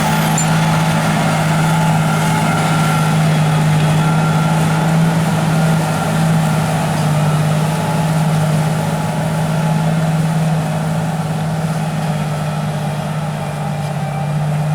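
Large John Deere tractor's diesel engine running steadily under ploughing load, with a steady low hum that holds the same pitch throughout.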